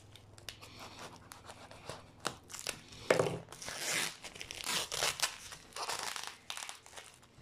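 Paper padding and packing tape on a parcel being cut with a pocket knife and torn away by hand: irregular tearing and crinkling rustles, with one sharp snap about three seconds in.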